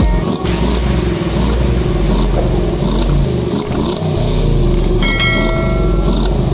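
Mercedes G-Wagon engine revving through its side-exit exhaust pipes, the note rising and falling in repeated blips. A short chime-like ding sounds about five seconds in.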